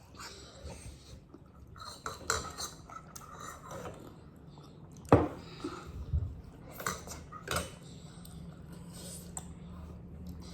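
Eating utensils clinking and scraping against a bowl of noodles during a meal, in scattered short clinks; the sharpest, loudest clink comes about five seconds in.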